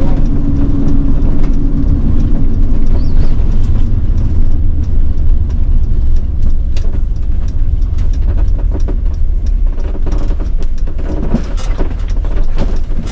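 Road and engine noise inside a Sprinter camper van's cab while driving: a steady deep rumble, with scattered rattles and knocks in the second half.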